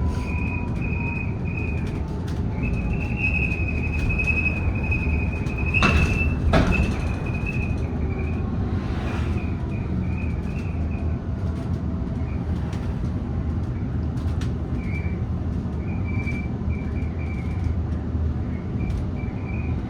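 Interior of a BYD electric double-decker bus on the move: a steady road and tyre rumble, a high whine that comes and goes, and scattered rattles and clicks from the bodywork, with a louder clatter about six seconds in.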